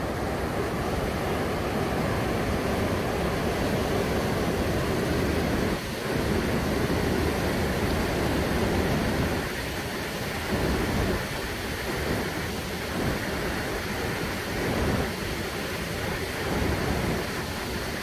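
Rough storm surf breaking and washing up a sandy beach: a steady rush of water noise that surges every couple of seconds as waves come in.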